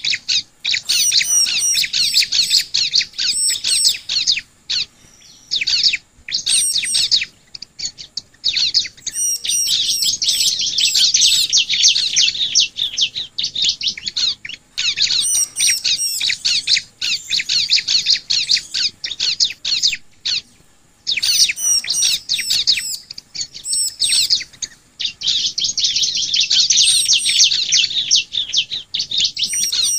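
Bar-winged prinias (ciblek) singing: loud bouts of rapid, high chirping, each lasting from one to several seconds, with short pauses between.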